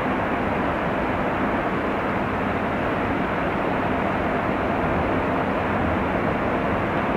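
Steady machinery noise from a large car carrier ship passing close by, with a low hum under an even hiss.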